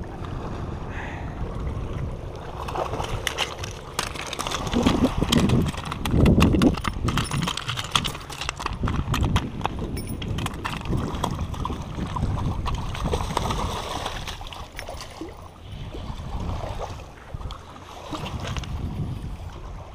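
Irregular splashing and sharp knocks in shallow water at a rocky shore as a hooked salmon thrashes close in and is landed and released.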